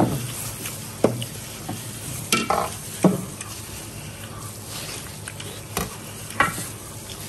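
Eating noises from braised cow hooves pulled apart in plastic-gloved hands and chewed: a sticky, crackly squelching with several short, sharp wet smacks spread through.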